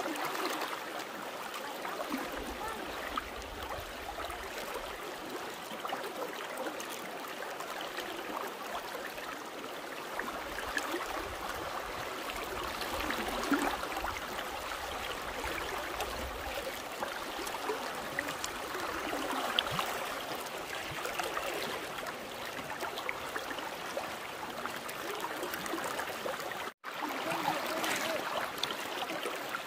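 Flowing floodwater rushing steadily, an even watery hiss. The sound cuts out for an instant near the end.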